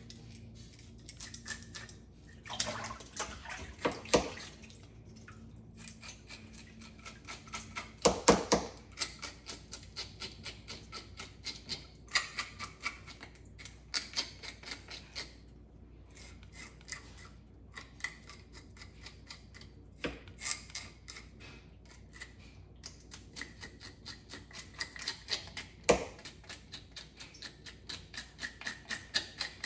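Fish being scaled and washed by hand in a basin of lime-and-vinegar water: quick, repeated scraping strokes against the scales with splashing water, a few louder splashes about four, eight and twenty-six seconds in.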